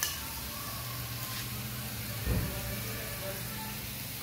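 Meat sizzling steadily on a tabletop grill pan, with a sharp click at the start and a dull thump a little past halfway.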